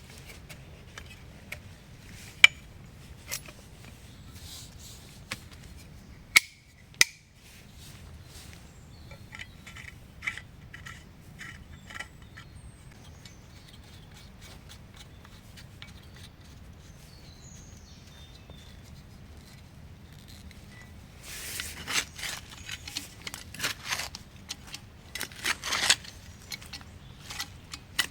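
Camp gear being handled: scattered sharp clicks and clinks, with a run of small clicks about ten seconds in and a busier patch of clinking and rustling near the end, over a faint low steady background rumble.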